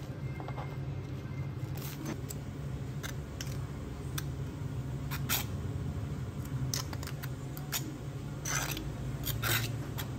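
Scattered clicks, taps and short scrapes of kitchen tools and containers being handled, the largest near the end, over a steady low hum of machinery.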